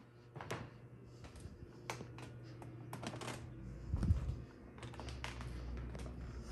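Light irregular clicks and ticks from old wooden floorboards being walked on, over a low steady hum. There is a dull thump about four seconds in.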